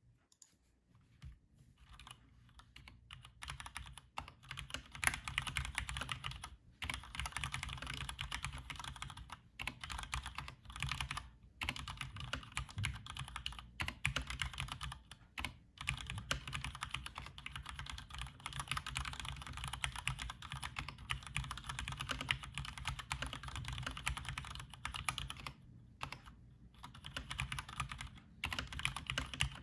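Typing on a Cherry G80-3000S TKL mechanical keyboard: a continuous stream of keystroke clicks that builds up over the first few seconds, with a few brief pauses.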